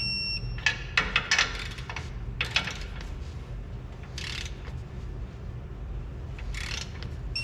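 Ratchet-style torque wrench clicking in short bursts as the leaf-spring U-bolt nuts are torqued to spec, with a short electronic beep at the start and again at the end, typical of a digital torque wrench reaching its set torque.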